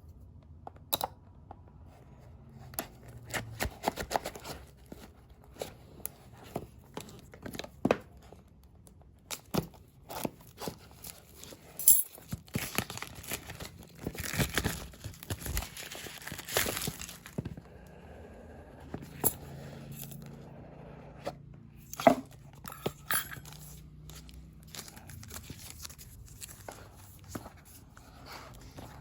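Shipping packaging being opened by hand: plastic and paper tearing and crinkling, loudest in a stretch near the middle, among scattered clicks and knocks from handling the box.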